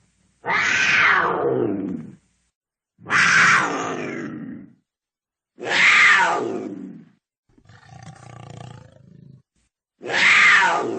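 Cougar calling: four loud calls, each about a second and a half long and sliding down in pitch, cut apart by silence. A quieter, lower growl comes about eight seconds in.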